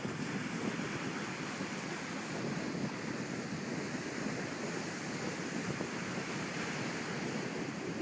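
North Atlantic ocean waves washing steadily against the shore, a continuous surf noise with no distinct breaks.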